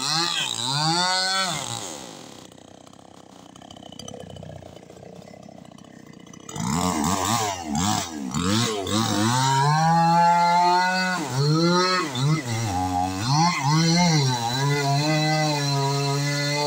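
Two-stroke chainsaw revving up and down in quick blips, dropping to a quiet idle for a few seconds, then revving again and settling into a steady high-throttle run as it cuts into a coconut palm trunk near the end.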